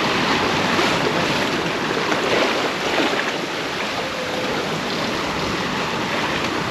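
Steady rush of sea water along the hull of a sailboat under way, with wind buffeting the microphone.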